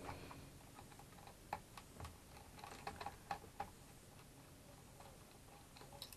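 Faint, scattered small clicks and taps of a precision screwdriver and fingers working the tiny prop screw out of a quadcopter's plastic propeller hub, dying away about two thirds of the way through.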